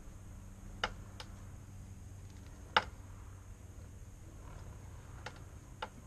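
Sharp metallic ticks from the rear of a Piaggio MP3 400LT scooter as the rear wheel is turned by hand: five in six seconds at uneven intervals, the loudest about three seconds in, over a faint low hum. This little ticking sound was traced to the exhaust's lower suspension mount.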